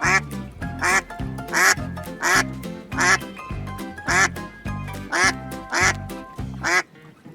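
Duck quacking in a steady series, roughly one quack every two-thirds of a second, stopping shortly before the end, over background music with a steady beat.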